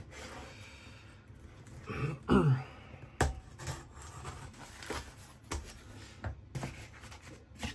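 A craft knife slits the tape on a small corrugated cardboard box, followed by cardboard rustling and scraping as the flaps are pulled open. Several sharp knocks and clicks come from handling the box, with a short creak about two seconds in.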